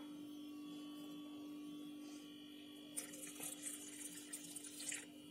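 A steady low hum throughout; from about three seconds in, water is poured from a glass into a steel bowl of dry flour mix, a faint splashing trickle.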